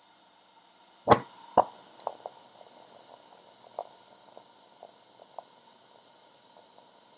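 Two sharp knocks about half a second apart, then a run of fainter, irregular clicks and taps that thin out over the next few seconds.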